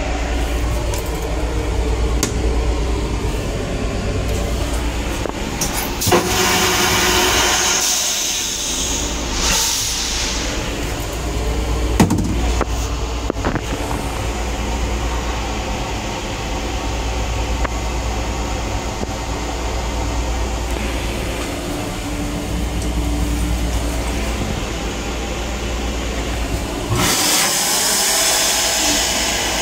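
Steady low rumble of an LIRR M9 railcar heard from inside its restroom. A burst of rushing noise comes about six seconds in, a shorter one around ten seconds, and sharp clicks near twelve seconds. Near the end the sink tap runs water with a steady rush.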